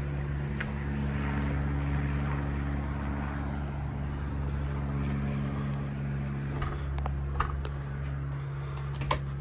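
Steady low machinery hum with several constant tones, as from the yacht's onboard machinery running, with a few faint clicks or light knocks near the end.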